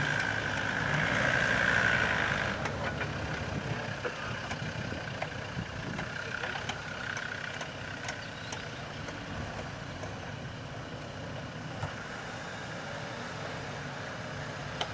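Engines of off-road 4x4s running as they crawl over sand hills, a steady engine noise with a whine that is louder for the first two seconds or so.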